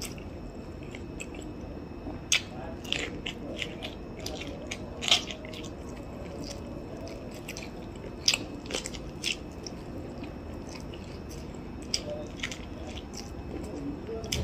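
Close-up eating sounds of someone biting kernels off a corn on the cob and chewing them. Short sharp crunches and mouth clicks come in small clusters a few seconds apart.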